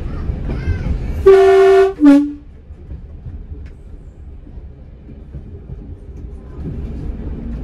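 Class 108 diesel railcar's two-tone horn sounded from the cab: a loud higher note of about half a second, then a short lower note. Under it is the rumble of the railcar running along the line, which is quieter after the horn.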